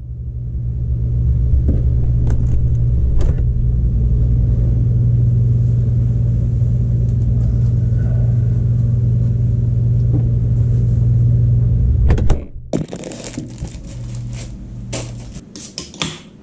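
Microwave oven running with a loud, steady electrical hum that cuts off abruptly about twelve seconds in. Clicks, knocks and clattering follow.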